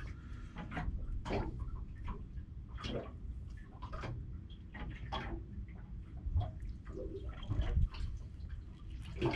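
Small waves lapping against the side of a boat: irregular soft splashes and drips over a low rumble.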